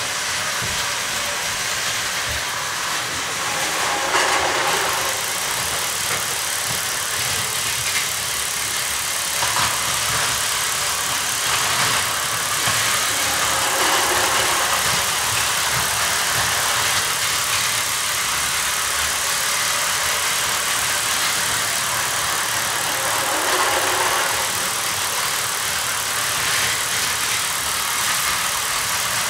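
Plarail battery-powered toy trains running on plastic track: a steady whir of their small motors and wheels, with a few brief louder swells as they pass.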